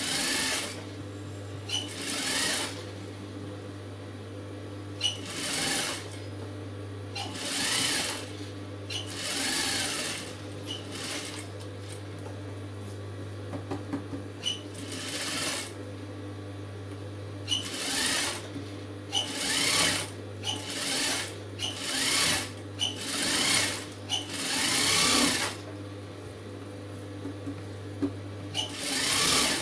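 Industrial flatbed sewing machine stitching in short runs of about half a second to a second, more than a dozen in all, coming faster in the second half, with a steady low hum between runs.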